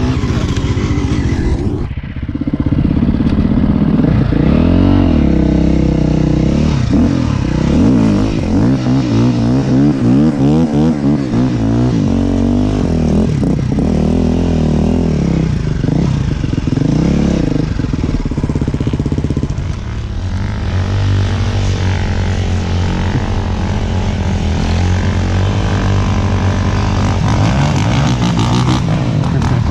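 Dirt bike engine running hard under the rider, its pitch rising and falling over and over as the throttle is worked. There are brief let-offs about two seconds in and again about twenty seconds in.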